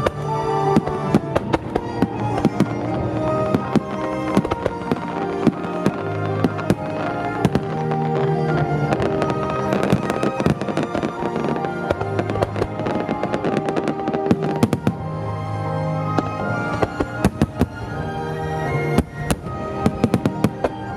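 Starmine fireworks barrage: aerial shells bursting in quick succession, many sharp bangs and crackles, coming thickest about halfway through and again near the end, over loud music played through the venue's speakers.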